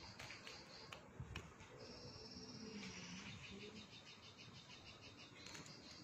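Faint, high, rhythmic chirring from a small animal, with a few soft clicks.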